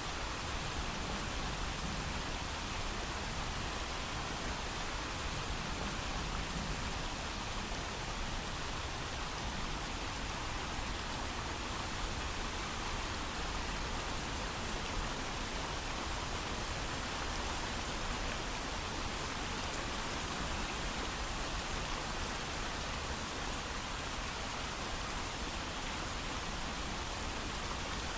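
Steady heavy rain without thunder: an even, unbroken hiss of rainfall.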